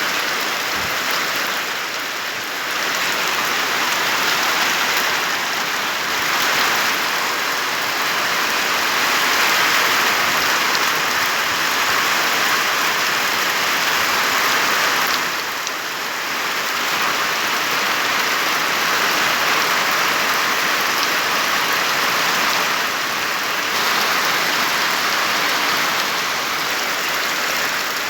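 Steady rain falling, a dense even hiss that eases briefly a few times, most clearly about halfway through.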